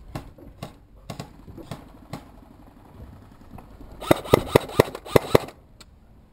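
Airsoft gun fired in a quick run of about eight sharp shots over roughly a second, about four seconds in, after a few seconds of light scattered steps and knocks.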